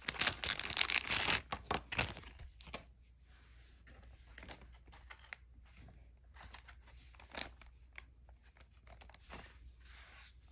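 Crinkling and tearing of packaging as a bracelet is unwrapped by hand, densest in the first two seconds, then scattered light rustles and small clicks.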